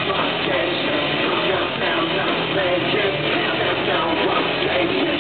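Rock band playing live, with electric guitar and drum kit, loud and steady as heard from the audience.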